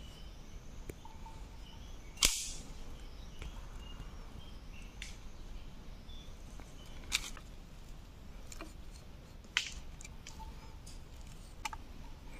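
Sharp clicks and snaps from a homemade spring trap being handled and set. One loud snap comes about two seconds in, then three more a few seconds apart.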